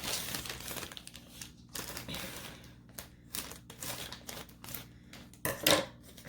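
Scissors snipping and packaging crinkling as a package is cut open by hand: a run of short clicks and rustles, with one louder rustle near the end.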